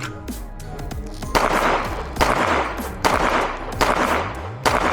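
A string of handgun shots fired in quick succession during a timed pistol-competition course of fire, just after the shot timer's start signal.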